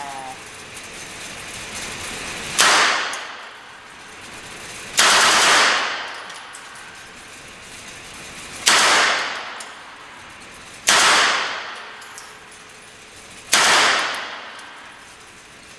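Submachine gun fired five times, a few seconds apart, each report ringing on in the indoor range; the one about five seconds in lasts a little longer.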